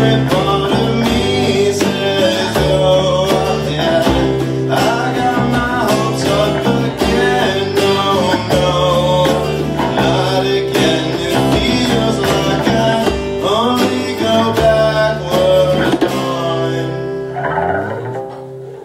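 A live band plays a song on guitars with a sung vocal. The music dies away near the end as the song finishes.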